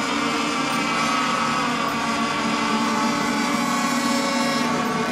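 Several radio-controlled racing boat engines running together out on the water, a steady drone of overlapping engine pitches as the boats circle during the milling period before the race start.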